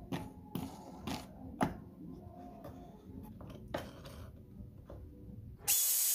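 Light knocks and clicks of plywood fence parts being handled, about six over four seconds. Near the end the drill press motor suddenly starts running loudly with a high whine.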